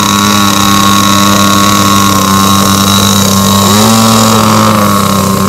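Small engine of a radio-controlled flying lawn mower running steadily at idle, with a brief rise in pitch about four seconds in as the throttle is nudged.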